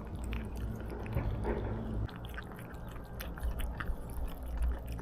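Street cats chewing and biting food, with many irregular, quick crunches.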